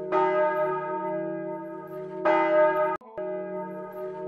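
A bell tolling, struck twice about two seconds apart, each stroke ringing on and slowly fading. The ringing cuts out for an instant about three seconds in.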